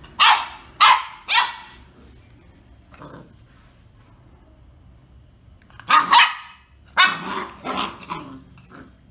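German shorthaired pointer puppy barking in short, high yaps: three quick barks at the start, a lull, then a run of five or six more barks from about six seconds in.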